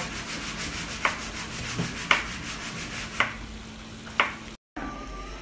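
Apple slices caramelizing in a frying pan, sizzling with a steady fine hiss, with a sharp click about once a second. The sizzle cuts off abruptly about four and a half seconds in.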